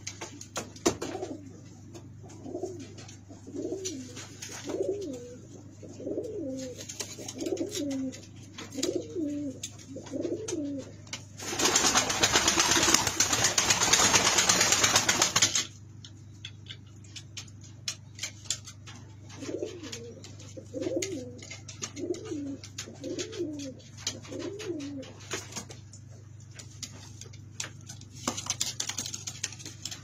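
Domestic pigeon cooing: a run of short rising-and-falling coos about one a second, in two spells, with faint scattered clicks. About halfway through, a loud rushing hiss covers everything for about four seconds.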